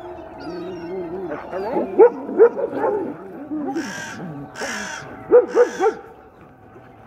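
Crows cawing overhead in short, loud calls: a pair about two seconds in and three quick ones about five and a half seconds in, with harsher rasping sounds in between.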